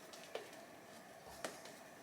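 Quiet room tone with two short, sharp clicks about a second apart.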